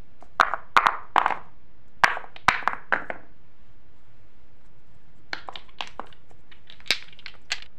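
Small glass paint bottles knocking and clinking against each other and the tabletop as they are tipped over and gathered up, in four short bunches of quick taps.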